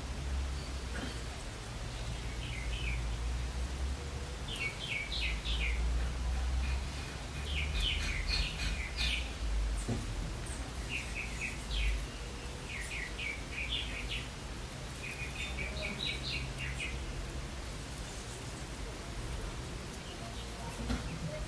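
Small birds chirping in short runs of quick, high chirps every few seconds, over a steady low rumble.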